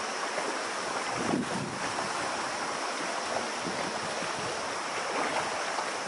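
Rocky river rushing over boulders: a steady rush of water.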